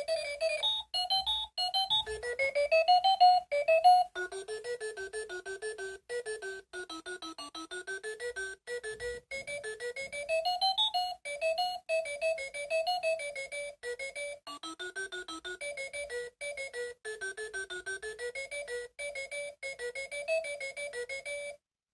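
Electronic alarm-clock melody: a quick tune of short beeping notes stepping up and down in pitch, cutting off suddenly near the end.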